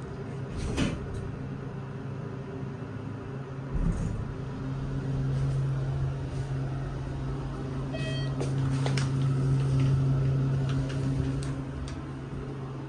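ThyssenKrupp Endura MRL hydraulic elevator in motion, heard from inside the cab: a steady low hum from the hydraulic drive that picks up with a thump about four seconds in as the car starts, carries on through the ride, and eases off near the end as the car slows to a stop. A short electronic chime sounds about midway.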